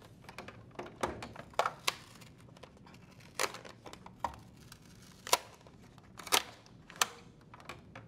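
Adhesive-backed paper control board shield being peeled off a washer's plastic backsplash: irregular crackling and tearing of the adhesive, with a few louder sharp snaps in the second half.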